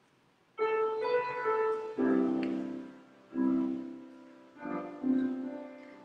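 Piano playing slow chords, each struck and left to fade. It starts about half a second in.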